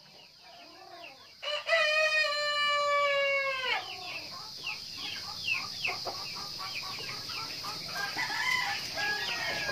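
A rooster crows once, a long call of about two seconds starting about a second and a half in. After it, a flock of free-range chickens keeps up short, repeated clucking calls.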